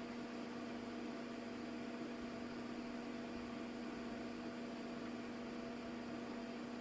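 Steady electrical hum with a constant hiss from running workbench equipment, unchanging throughout.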